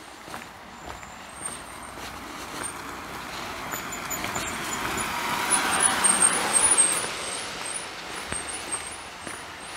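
A car driving past, its tyre and engine noise growing to its loudest about six seconds in, then fading away.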